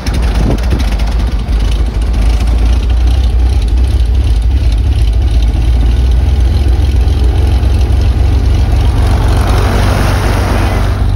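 Beechcraft Baron's left engine, an air-cooled flat-six Continental, idling steadily just after being started, heard from inside the closed cabin.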